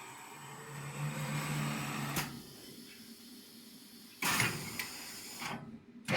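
Wood-turning lathe machinery between cuts: a low motor hum, a sharp click about two seconds in, and a short burst of mechanical noise about four seconds in.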